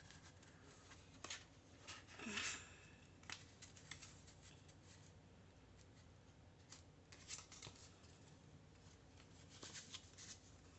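Faint, scattered rustles and light taps of paper and card being handled: tags and a journaling card moved in and out of a paper journal pocket.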